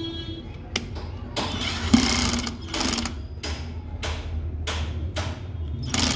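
Black+Decker cordless drill run in short trigger bursts, each spinning up and dying away, as it drives a metal hook into a plywood board. It does this about a dozen times, loudest about two seconds in.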